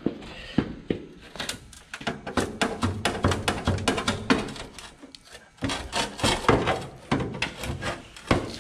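Rapid, irregular metal clanks and rattles of a stainless quarter fender and its tube bracket being wrenched and shaken loose from a truck frame.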